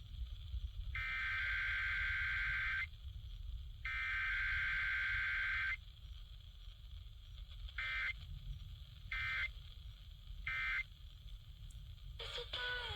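Emergency Alert System SAME digital data bursts: two buzzy, warbling data tones of about two seconds each, a second apart, ending the header sequence. After a pause of about two seconds come three short bursts about a second apart: the end-of-message code.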